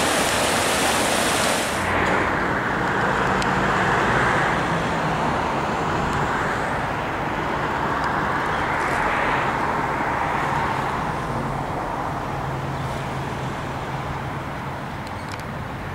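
Rushing floodwater hisses for the first couple of seconds and is cut off abruptly. Then comes the steady hum of passing road traffic, swelling twice as vehicles go by and slowly fading near the end.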